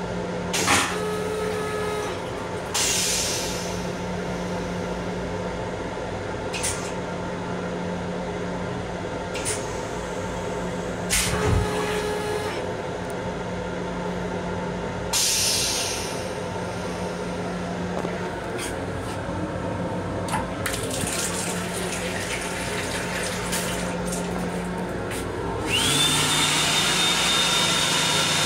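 M7 railcar toilet going through its flush cycle: several short hissing bursts of rinse water into the stainless-steel bowl over the railcar's steady hum. Near the end a louder hiss with a high steady whine comes in and holds.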